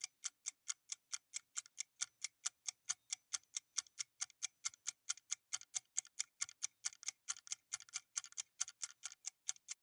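Quiz countdown timer's clock-tick sound effect: a fast, even run of ticks, about four or five a second, counting down the time left to answer.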